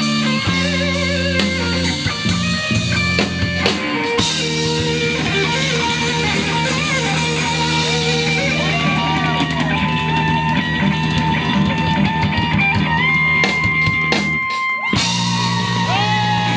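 Live rock band, electric guitar and drum kit, playing loudly. The guitar plays sustained lead notes, with one long held note near the end before a brief break.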